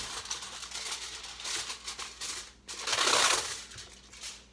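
Reynolds Wrap aluminium foil crinkling as a length is pulled off the roll in its box, then a louder rip about three seconds in as the sheet is torn off.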